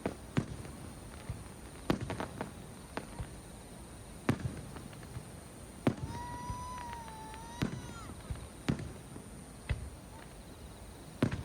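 Aerial fireworks shells bursting overhead: about ten sharp bangs at irregular intervals, some trailing a short rumble. A steady high whistle sounds for about two seconds near the middle.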